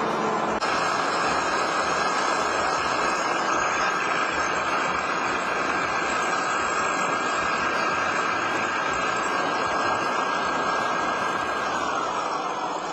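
REM VR12 grain vacuum running at speed, its CAT Tier 4 diesel engine and blower making a steady rush of air with a high whine. Near the end the whine falls in pitch and the noise begins to die away as the machine winds down.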